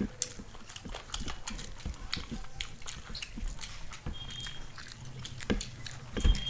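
Close-up eating sounds: chewing, lip-smacking and many short wet clicks from people eating fast, with a couple of low thumps near the end.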